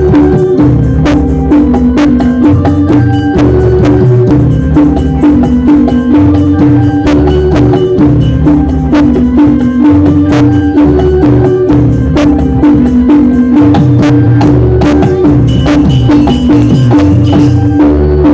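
Loud music with a steady, driving beat: drums and wood-block-like percussion over a short repeating melodic figure and a pulsing bass line.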